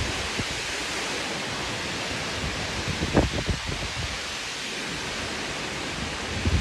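Strong, dry gusty wind blowing hard with a steady rushing hiss, buffeting the microphone in low rumbling gusts about three seconds in and again near the end.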